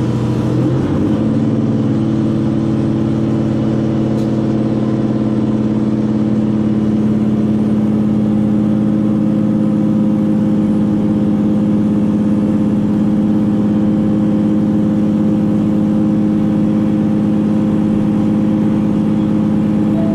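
JR Hokkaido H100 (DECMO) diesel-electric railcar heard from inside as it pulls away. Its engine and drive step up in pitch about a second in, then hold a steady drone.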